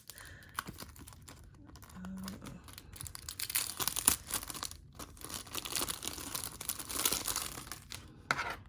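Packaging being torn open and crinkled by hand: a few light rustles and clicks, then dense rustling and tearing from about three seconds in until near the end.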